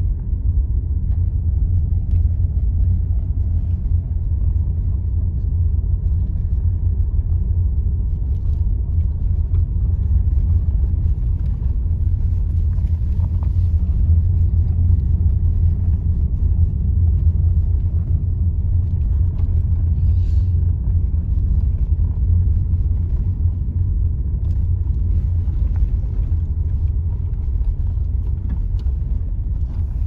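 Steady low rumble of a car driving along, heard from inside the cabin: engine and road noise.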